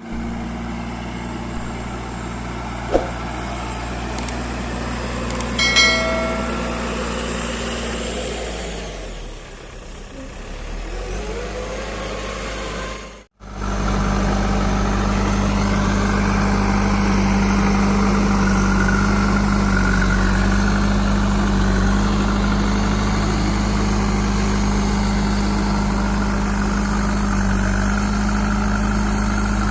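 JCB 3DX backhoe loader's diesel engine running steadily, dipping quieter for a few seconds and then cutting out for an instant about thirteen seconds in before coming back louder and steady. A brief higher-pitched tone sounds about six seconds in.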